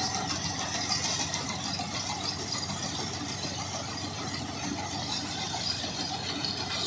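A John Deere tractor runs under load, driving a straw reaper (bhoosa machine) that chops wheat stubble and blows the straw up a delivery pipe into a trolley. The engine and the machine's chopper and blower make a steady, continuous mechanical din.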